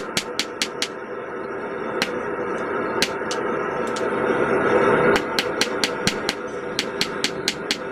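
Hand hammer striking hot steel held in tongs on a steel anvil, in fast runs of about five blows a second. Early on the hammering breaks off into a few single blows while a steady rushing noise swells. Fast hammering starts again about five seconds in.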